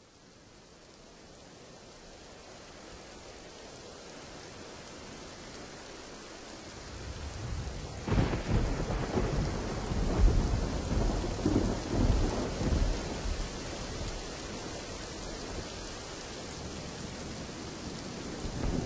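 Steady rain hiss fading in, then rumbling thunder that breaks in about eight seconds in and rolls on, swelling and easing.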